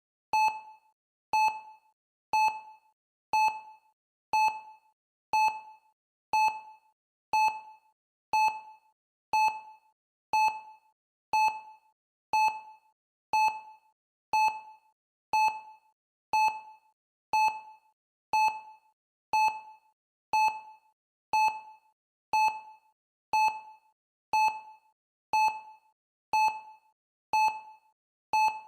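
Countdown timer's electronic beep sounding once a second, each a short mid-pitched blip that dies away quickly, steady and evenly spaced as it counts off the seconds.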